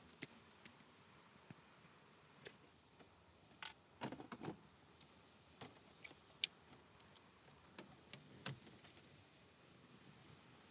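Faint, scattered clicks and light taps of hands working on plastic dashboard trim and its screws, with a small cluster of knocks a little before the middle and another later on.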